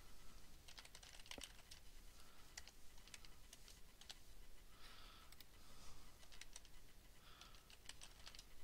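Faint typing on a computer keyboard: irregular, quick keystrokes in short runs with brief pauses, as text is typed on a computer.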